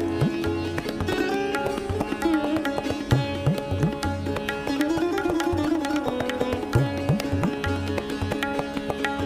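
Indian classical music: a sitar plays a melody over a steady drone, with tabla strokes whose low drum slides upward in pitch.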